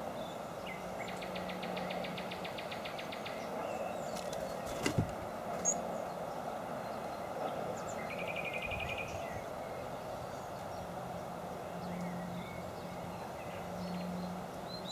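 Small birds calling with rapid, evenly pulsed trills, a longer one about a second in and a shorter one near the middle, over a steady background hiss of outdoor noise. A single sharp click about five seconds in.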